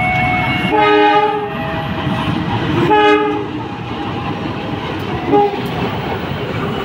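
Train horn sounding two chord-like blasts about two seconds apart, then a short toot, over the steady rumble of the train running along the track.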